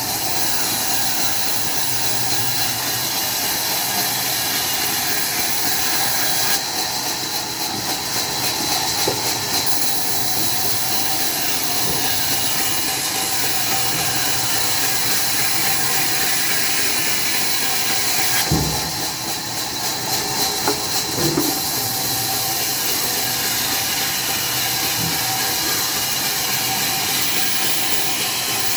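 Sawmill machinery running steadily with a loud hiss. The sound shifts slightly about a third of the way in, and there is a single knock past the middle.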